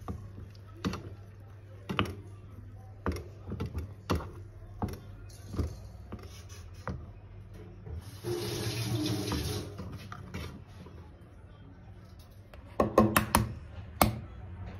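A metal spoon clinks against a small saucepan about once a second as it stirs melted butter and chocolate. About eight seconds in there is a rushing noise lasting about two seconds, and near the end a quick clatter of knocks.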